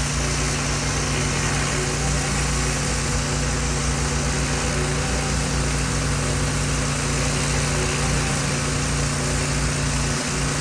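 Small gas engine of a pressure washer running steadily at constant speed, with the hiss of the spray.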